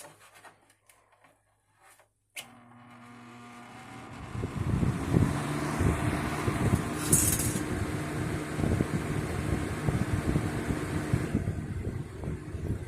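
A 1980s Patton box fan switched on with a click about two seconds in. Its motor and blades spin up over a couple of seconds to a steady rush of air with a low motor hum, running on high speed.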